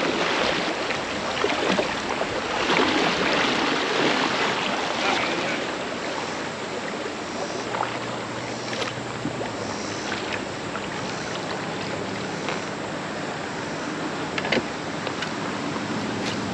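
Creek water running and lapping around a kayak, louder over the first few seconds, with a few light knocks later on.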